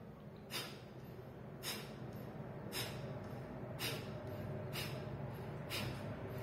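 Kapalbhati breathing: six sharp, forceful exhales through the nose, about one a second, each pushed out by a snap of the belly. This is the slow pace, with a pause after each stroke, that is advised for people with heart trouble or high blood pressure.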